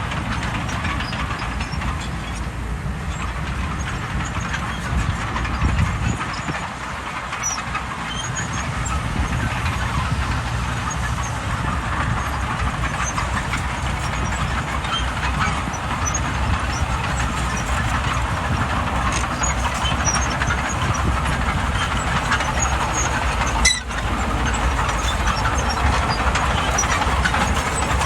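Bulldozer's diesel engine running steadily, with the metallic clatter of its steel tracks and working parts.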